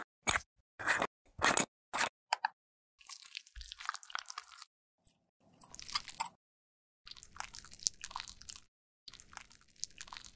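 A handful of sharp plastic clicks as lipstick cases are handled and opened. Then sticky, crackling wet sounds in several stretches as a liquid lipstick's applicator wand is pulled from its tube and the glossy product is spread on skin.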